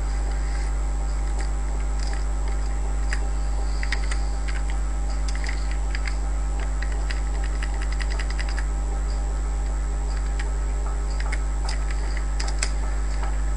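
Computer keyboard keys clicking in scattered runs as an address is typed, over a loud steady low electrical hum.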